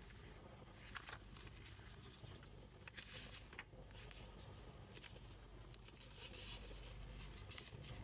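Sheet of paper being folded and creased by hand: faint rustling with short, crisp scrapes at irregular moments.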